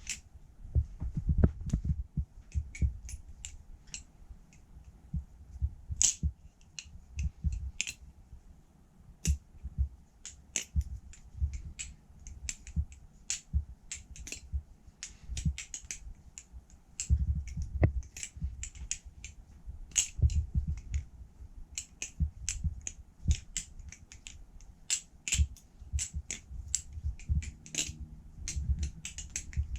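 Balisong (butterfly knife) being flipped: its handles and blade swing and clack against each other in quick, irregular runs of sharp clicks, with dull thuds of handling underneath.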